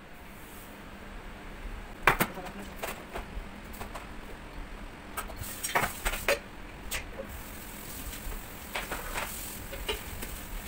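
Fried eggplant halves being laid into metal baking trays: scattered light knocks and taps of metal trays, the loudest about two seconds in and a cluster around six seconds, over a low steady hum.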